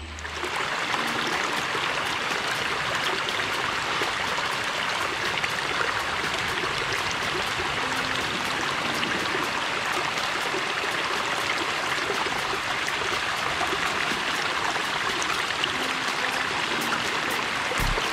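Shallow stream running over stones right at the microphone: a steady, even rush of moving water.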